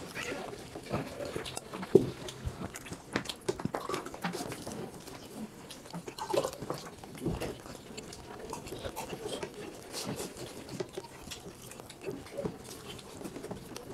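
People eating chicken curry and rice with their hands: chewing, lip smacking, and fingers squishing and tearing meat on the plates in a run of irregular small clicks and smacks, with one sharp, sudden sound about two seconds in.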